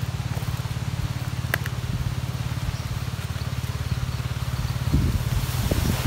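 A motor running steadily with an even, low pulsing hum. About five seconds in, it gives way to gusty wind rumble on the microphone.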